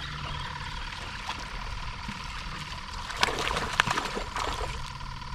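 A small hooked fish splashing at the water's surface as it is reeled in to the side of the boat: a quick burst of splashes about three seconds in, lasting about a second and a half.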